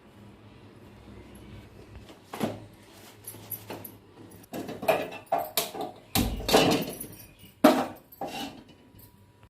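Kitchen utensils and dishes clattering: a run of irregular sharp knocks and clinks that starts about two seconds in, with the loudest knock near the end.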